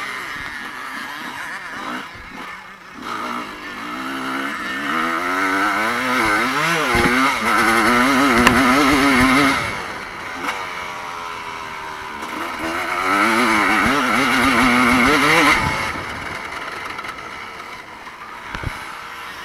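Evo-class motocross bikes racing, engines revving up and down as the riders work the throttle over the track. Bikes come past loudly twice, about five seconds in and again about thirteen seconds in, then fade.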